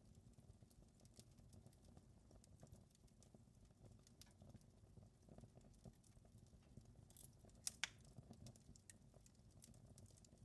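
Wood fire crackling in a fireplace: scattered sharp pops and snaps over a low steady rumble, with two louder pops close together about three-quarters of the way through.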